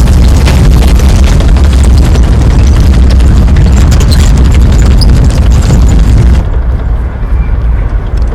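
Mixed sound effect of tanks at close range: a loud, deep engine rumble with dense metallic clanking and scraping of the tracks. About six seconds in it cuts suddenly to a quieter, duller rumble.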